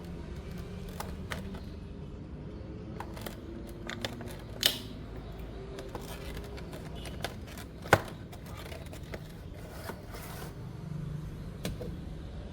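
Scattered small plastic clicks and taps from handling earbud packaging and the charging case, with two sharper clicks about five and eight seconds in.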